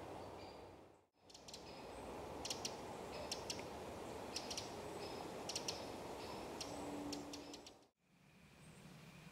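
Eurasian wren giving sharp ticking calls, singly and in quick pairs, over a steady low background rumble.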